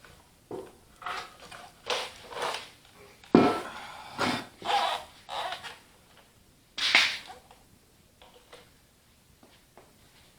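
A man's effort grunts mixed with knocks and thuds as a heavy tractor wheel weight is worked off the wheel. The sharpest thuds come about three and a half seconds in and again about seven seconds in.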